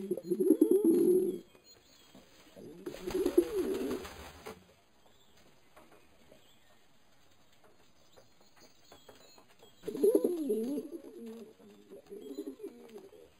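Racing pigeons cooing: low, warbling coos in three bouts, at the start, around three seconds in, and from about ten seconds in, with a quiet stretch of several seconds between. A rustling noise runs under the second bout.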